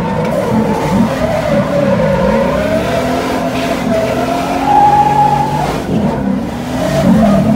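Drift car engines revving up and down with tyres squealing as the cars slide; the squeal is loudest about five seconds in.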